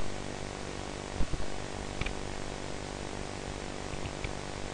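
Steady electrical hum and hiss of the recording's background noise, with a couple of soft thumps about a second in and a few faint clicks later on.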